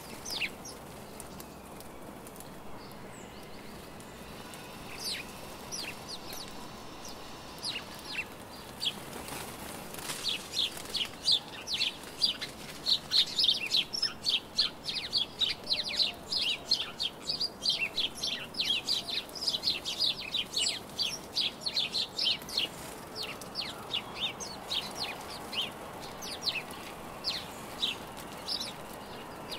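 A flock of house sparrows chirping at a seed feeder, with occasional wing flutters. The chirps are sparse at first, build into a dense, rapid run of short calls about ten seconds in, then thin out again near the end.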